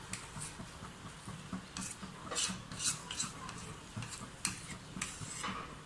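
Steel spoon scraping thick homemade condensed milk out of a plastic bowl, a run of short, uneven scrapes.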